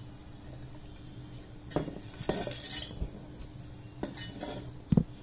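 Coconut pieces and cashew nuts dropped by hand into a stainless-steel mixer-grinder jar: a few scattered clinks and knocks against the steel, with a louder knock near the end.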